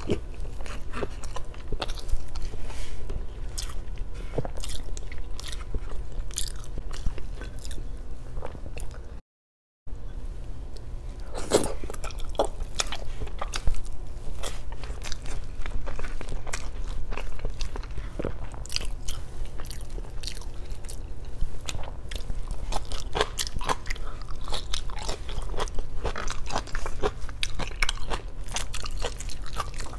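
Close-miked chewing and biting of a person eating chicken adobo by hand, a run of many short sharp clicks and crunchy bites over a steady low hum. The sound cuts out completely for about half a second about nine seconds in.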